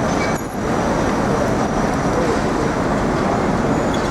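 Busy city street traffic: a steady din of passing cars and buses, with a brief dip in level about half a second in.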